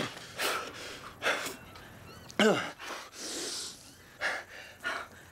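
Startled people gasping and breathing hard in short bursts. About two and a half seconds in comes a louder vocal sound that drops steeply in pitch, and just after three seconds a brief hiss.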